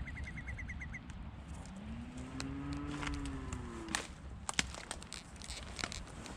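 A cow moos once: one drawn-out call about two seconds in, rising then falling in pitch. A rapid series of high ticks comes in the first second, and a few sharp knocks come after the moo.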